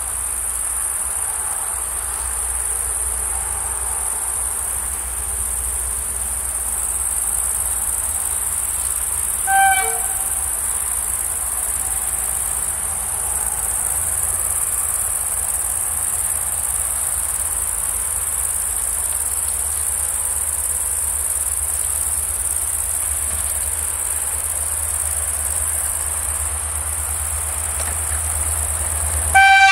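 Crickets chirping in a steady high shrill, with a short single horn blast from the approaching CFR class 65 (GM EGM6321/LDE 2100) diesel-electric locomotive about ten seconds in. The horn sounds again, louder, just at the end.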